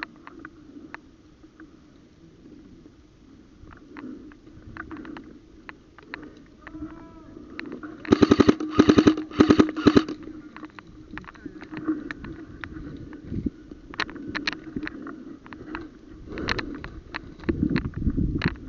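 Airsoft gun firing rapid full-auto in about four short bursts, about eight seconds in, with scattered clicks before and after.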